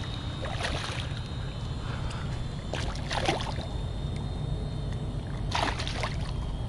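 A hooked bass thrashing and splashing in shallow water at the bank as it is grabbed by hand, in three splashy bursts over a steady low rumble.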